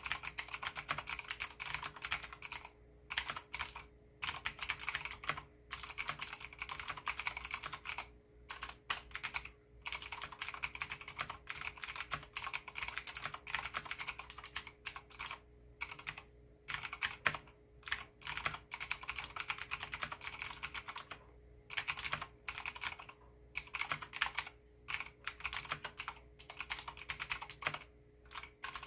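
Typing on a Leopold FC660M mechanical keyboard with clicky Cherry MX Blue switches and MDA-profile Big Bone keycaps: quick runs of key clicks, broken by short pauses every few seconds.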